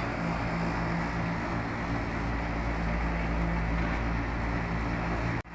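Steady drone of running plant-room machinery, a low even hum with a noisy wash over it, that cuts out abruptly for an instant near the end.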